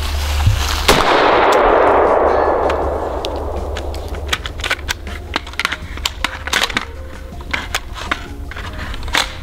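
A single shot from a Desert Tech MDRx bullpup rifle about a second in, followed by a long rolling echo. Then small clicks and clacks as the rifle is tilted and worked by hand after it stops firing, with a round stuck inside.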